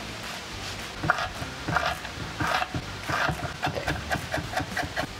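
Chef's knife dicing an onion on a wooden cutting board: the blade knocks on the board, a few spaced strokes at first, then a quicker run of about five a second in the second half.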